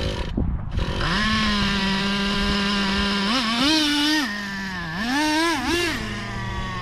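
A small engine starts running about a second in, holds a steady pitch, then is revved up and back down twice.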